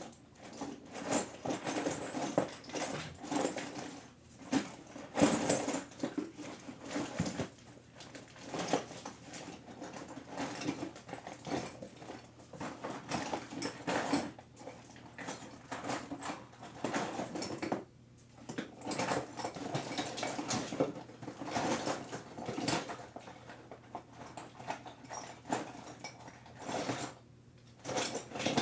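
Small metal screws and hardware being rummaged through and handled, making irregular clicks and rattles.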